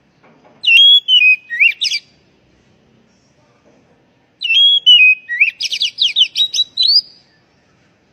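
Oriental magpie-robin (kacer) singing: two phrases of clear whistled notes that glide up and down in pitch, the second ending in a quick run of sweeping notes, about four a second.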